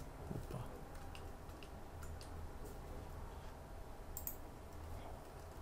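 Faint, irregular clicks from a computer keyboard and mouse during code editing, over a low steady hum.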